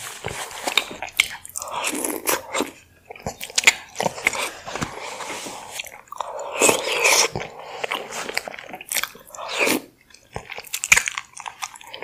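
Close-miked eating sounds: biting and chewing soft-boiled eggs and onions in thick sauce, with many sharp mouth clicks and smacks between bites.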